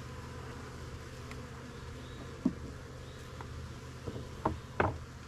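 Swarm of honeybees buzzing steadily around an opened hive, with a few short knocks about halfway through and near the end.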